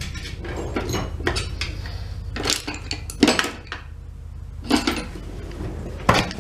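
Plastic housing and parts of a Milwaukee cordless impact driver clicking, knocking and scraping as they are handled and pressed together: a few sharp clicks spread over the seconds, with a low steady hum underneath. The housing is not seating properly and resists going back together.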